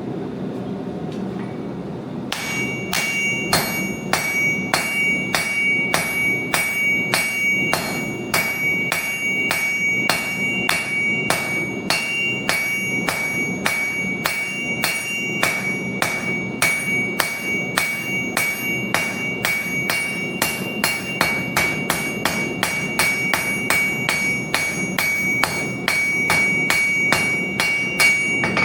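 Hand hammer striking metal on an anvil in a steady rhythm of about two blows a second, starting about two seconds in, each blow followed by a high bell-like anvil ring. A constant low rumble runs underneath.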